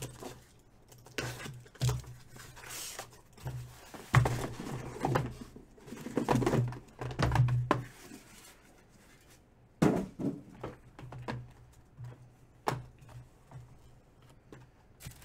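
Cardboard shipping case and the shrink-wrapped hobby boxes inside it being handled: irregular knocks and thuds as the boxes are lifted out and set down on a table, with short rustling and scraping between them, over a faint low hum.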